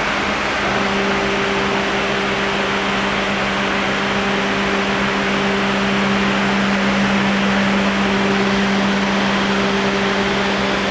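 Electric motor and pump of a hydraulic power pack running with a steady hum over a background hiss while a scissor lift table is raised; a higher tone joins the hum about a second in.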